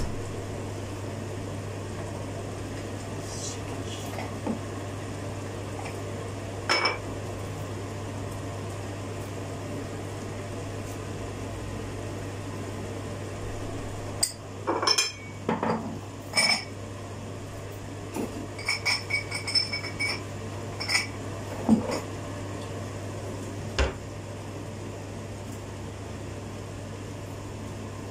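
Kitchen clatter: dishes, glassware and utensils clink and knock now and then, over a steady low hum. A flurry of short ringing clinks comes about halfway through.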